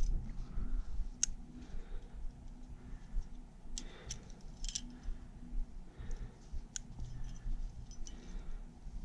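Metal climbing hardware clinking: a few sharp, separate clicks of carabiners and gear on a trad rack, over a low rumble of handling.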